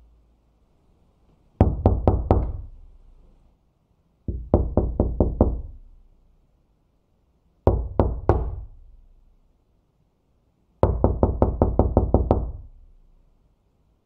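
Knocking on a door: four separate bouts of quick raps. The bouts hold about four, six, three and nine knocks, each ending in a short reverberant tail, with a pause of a second or two between them.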